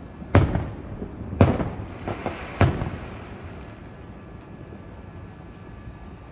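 Fireworks going off: three sharp bangs about a second apart, with a couple of smaller pops between the second and third, each trailing off in a rumble.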